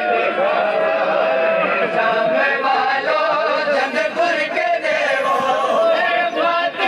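Men chanting a noha, a Shia mourning lament in Sindhi/Saraiki, several voices singing the melody together on long, sliding held notes.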